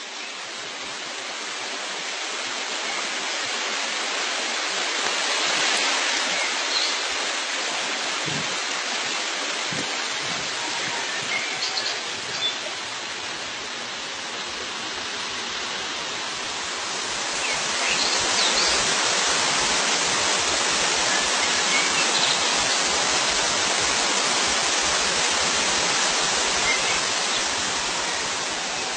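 Steady rushing water, growing a little louder partway through, with a few faint high bird chirps now and then.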